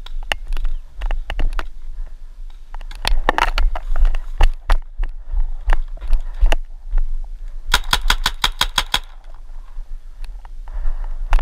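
Paintball marker firing a rapid burst of about ten shots in just over a second, about two-thirds of the way in. Around it, scattered sharp knocks and rattles of gear.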